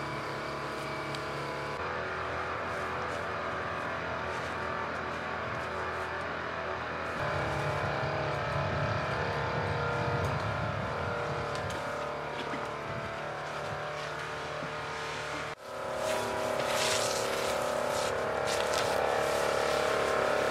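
A small engine running steadily at high speed, the portable pump that feeds the fire hoses. Its note shifts a couple of times, and about three quarters of the way through there is a brief dip before it comes back louder.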